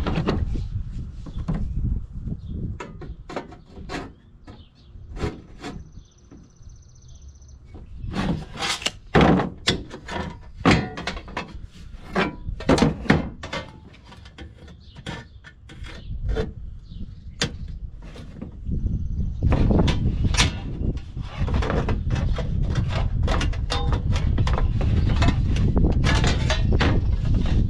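Irregular knocks, clicks and scrapes of hand work, over a steady low rumble.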